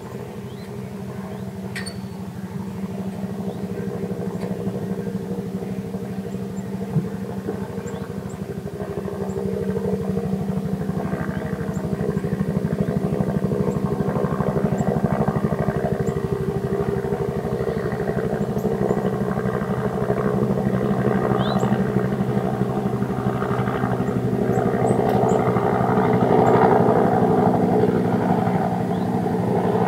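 An engine running steadily, its hum growing louder from about ten seconds in, with one sharp knock about seven seconds in.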